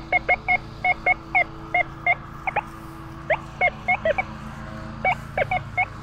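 Metal detector sounding rapid repeated target tones, short high beeps at about four or five a second with two brief breaks, as the coil sweeps back and forth over a buried target, which the detector reads as 81. A steady low hum runs underneath.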